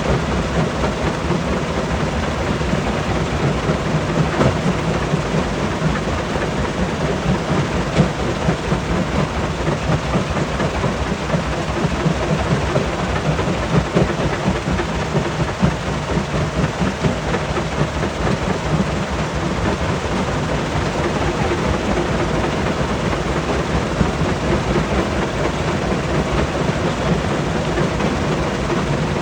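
Stone crusher crushing rock: a steady, dense rumble and clatter of breaking and tumbling stone over a low machine hum, with irregular louder knocks.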